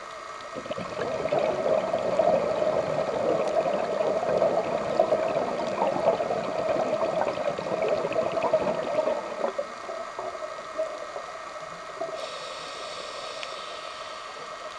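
Underwater gurgle of a scuba diver's exhaled bubbles, starting just after the beginning and dying away after about nine seconds. Beneath it runs a steady underwater hum with faint crackle.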